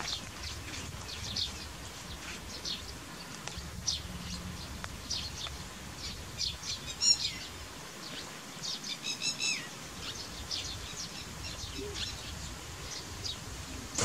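Red-wattled lapwing calling: short, sharp, high notes come throughout. Louder ringing call notes come about seven seconds in, and a quick run of them follows around nine seconds, falling in pitch at the end.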